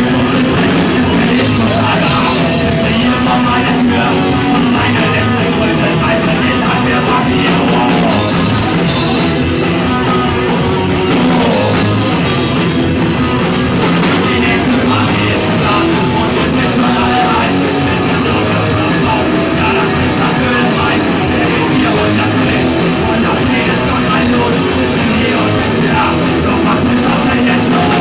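Live rock band playing loudly without a break: electric guitars, bass guitar and drum kit.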